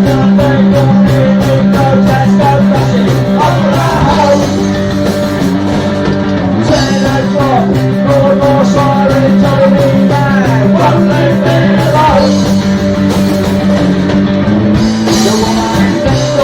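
Punk rock music with singing over guitar and a pulsing bass line.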